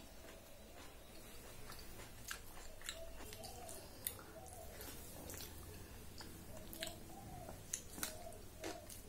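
Close-up mouth sounds of a person eating khichdi by hand: soft wet chewing with scattered short clicks.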